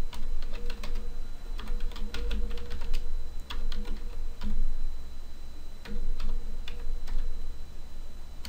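Typing on a computer keyboard: quick, uneven runs of key clicks with short pauses between them, over a low hum.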